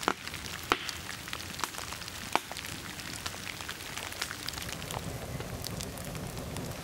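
Rain falling on forest puddles and leaves: a steady hiss with many sharp drop hits, a few louder than the rest.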